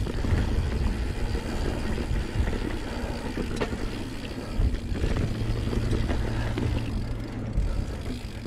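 A 2019 Santa Cruz Blur full-suspension carbon mountain bike riding over a dirt singletrack: a steady low rumble of the tyres and the bike rattling over the ground, with a few sharp knocks from bumps.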